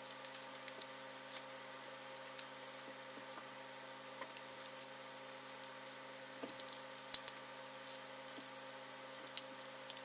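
Faint small clicks and taps of a small screwdriver and tiny screws against the aluminium bottom case of a unibody MacBook as the screws are set in, with a short run of sharper clicks about six and a half to seven seconds in, over a faint steady hum.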